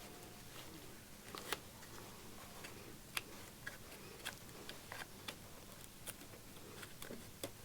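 Faint, irregular small clicks and ticks of close handwork as the old leather of an automaton's upper lip is picked and peeled away from the face.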